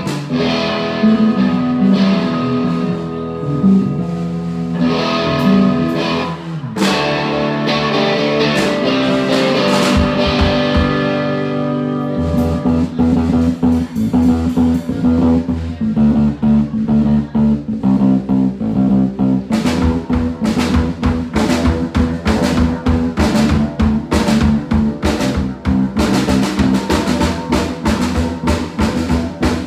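A live rock band jamming, with electric guitars and bass guitar playing. Partway through, the bass settles into a steady line and the drum kit comes in, and the drumming gets busier near the end.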